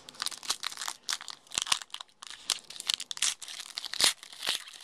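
Foil trading-card pack wrapper crinkling and crackling as it is handled and opened by hand: a quick, irregular run of sharp crackles, loudest about four seconds in.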